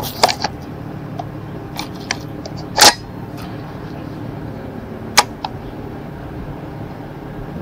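Metallic clicks and clacks of an LMT MWS rifle being handled at the bench, with one louder clack about three seconds in and another sharp click a little past five seconds.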